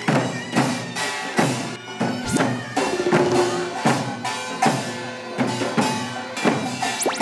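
Traditional Korean mask-dance percussion: buk barrel drums and kkwaenggwari small brass gongs beaten in a steady, brisk rhythm of about two strokes a second, the gongs ringing between strokes.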